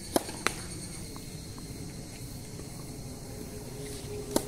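Tennis racket striking the ball on a serve, followed a split second later by a second sharp knock; near the end another serve is struck. A steady high-pitched insect chirring runs underneath.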